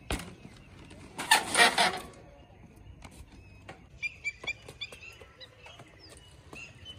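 Birds calling: a loud squawking call about a second in, then a quick run of short, high chirps around four seconds in. A sharp click right at the start.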